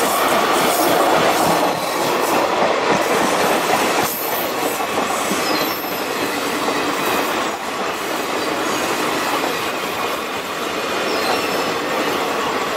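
Indian Railways passenger coaches passing slowly: a steady rolling rumble and clatter of wheels on the rails, with a few faint brief wheel squeals.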